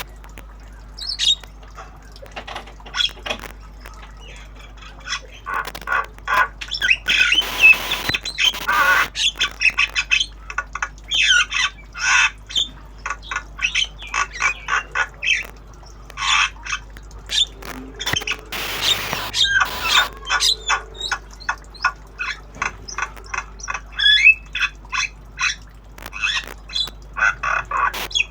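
Young Javan myna calling: a long run of short squawks, chirps and rapid chatter, with harsher, louder squawks about a third of the way in and again around two-thirds through, as the young bird practises its sounds.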